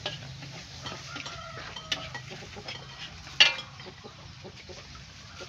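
Clatter of cooking in a wood-fired kitchen: scattered small knocks of utensils and pots, with one loud, sharp sound with a short ringing tail about three and a half seconds in.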